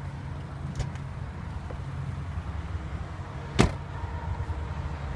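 A car door shut once with a sharp thump about three and a half seconds in, after a faint click near the start, over a steady low outdoor rumble.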